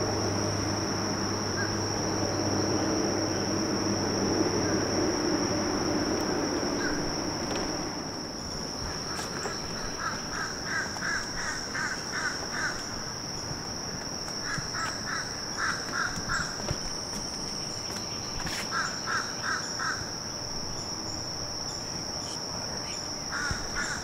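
Insects shrilling steadily at one high pitch in the woods. A low steady hum fades out about eight seconds in, and after that a bird calls several times in short, rapid runs of notes.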